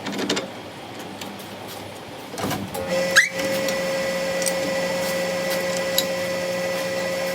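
A few knocks and clicks, then about three seconds in an electric machine starts up with a short rising whine and settles into a steady hum with a steady high-pitched tone.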